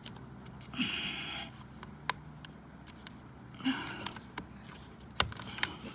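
Hands working on car door trim parts: a few sharp clicks and two short rustling, scraping bursts.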